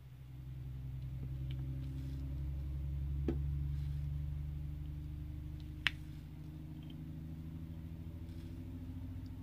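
A low, steady engine-like hum swells in over the first couple of seconds and holds at an even pitch. Two small sharp clicks from drills being pressed onto a diamond-painting canvas sound in the middle.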